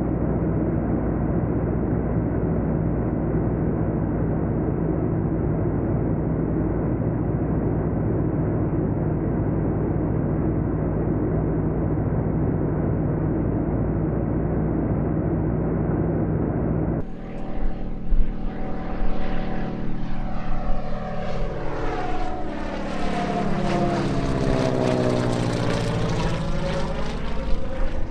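BT-13 Valiant's Pratt & Whitney R-985 radial engine and propeller running steadily, heard dull and muffled at first. About 17 s in the sound turns brighter and fuller as the plane flies past, the engine pitch falling as it goes by.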